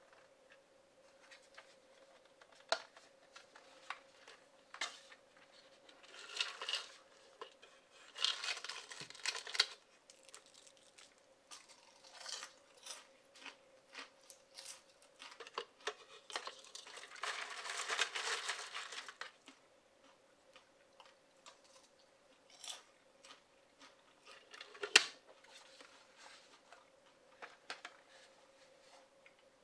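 Hard plastic Doraemon popcorn bucket being handled: many clicks and taps as its hinged head lid and rubbery door flap are opened and shut, with several longer rustling bursts of popcorn shifting inside the bucket. The loudest is a sharp click near the end; a faint steady hum runs underneath.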